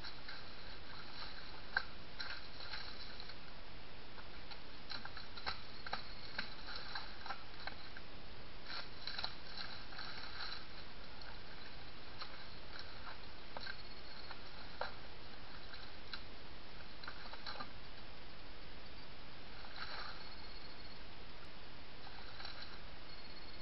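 Red deer stag pawing and wallowing in a muddy pool in the rut, heard as faint wet squelches, splashes and crackles in scattered bursts over a steady hiss. This wallowing marks its territory during the rut.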